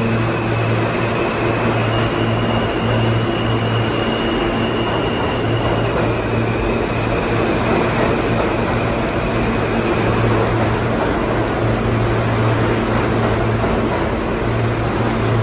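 R160B subway train pulling out of the station and gathering speed: a steady low hum and running noise, with a high electric whine that steps up in pitch about two seconds in and drops back a few seconds later.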